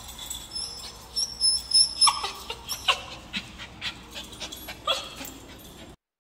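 Australian Shepherd puppy whining in short, scattered whimpers that slide down in pitch, with small clicks mixed in. The sound cuts off suddenly near the end.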